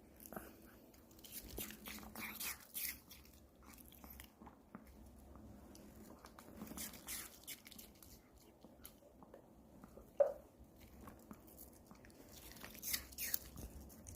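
Pomeranian crunching and chewing pieces of apple in irregular bursts of crisp bites, with one brief, sharper sound about ten seconds in.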